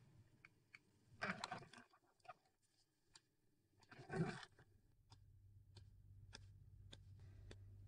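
Near silence: quiet room tone with a few faint scrapes and ticks of people moving, a little more noticeable about a second in and again about four seconds in.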